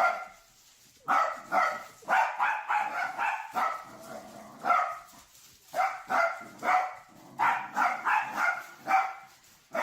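A dog barking over and over in quick runs of two to five barks, about two to three barks a second, with short pauses between the runs.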